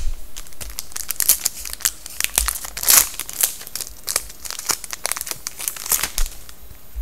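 Foil wrapper of a 2011-12 Panini Contenders hockey card pack being torn open and crinkled by hand: a rapid, irregular run of sharp crackles, loudest about three seconds in.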